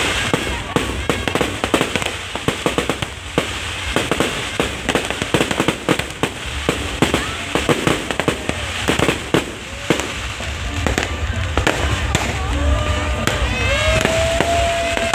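Aerial fireworks going off in rapid, irregular bangs and crackles over a low rumble, with voices of a crowd underneath. Near the end a held tone rises and falls in pitch.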